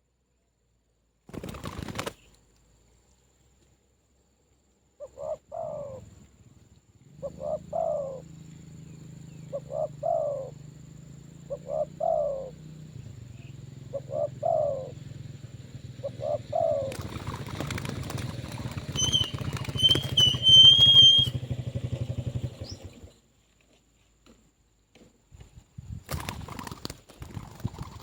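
Spotted dove cooing, six short calls about two seconds apart, over a steady low hum. Near the end the calls stop, a noisy stretch rises, and a small bird chirps a few times high up.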